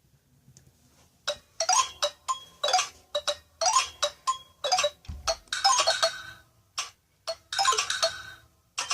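A Nokia ringtone played through a Sony Ericsson W595 phone's loudspeaker: a bright, chiming melody of short, quick notes. It starts about a second in and repeats its phrase.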